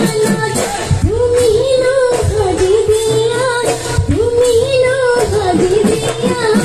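Assamese Bihu song: a woman sings long, wavering held notes with ornamented turns into a microphone, over a steady beat of dhol drums.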